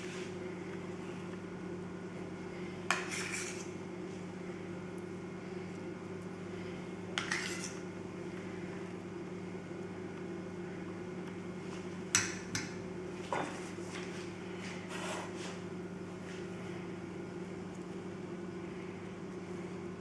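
A kitchen utensil knocking lightly against a metal dish about six times, spaced out, while ricotta filling is spooned onto pastry circles, over a steady low hum.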